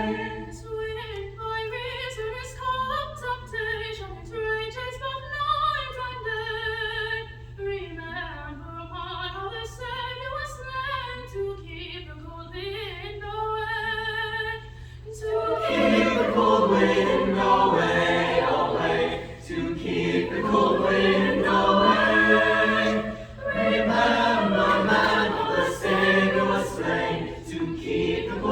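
High school madrigal choir singing a cappella. A single sung melodic line carries the first half, and the full choir comes in much louder about halfway through.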